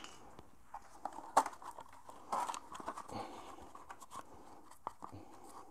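Quiet handling noises from working on an electric scooter by hand: scattered light clicks and taps, with one sharper click about a second and a half in and a few short rustles.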